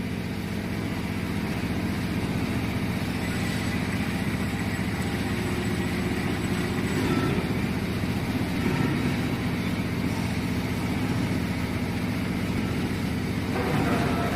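Metal lathe running steadily under power, a low even hum from its motor and gear train, while it cuts a 1-inch NPT pipe thread at 11½ threads per inch.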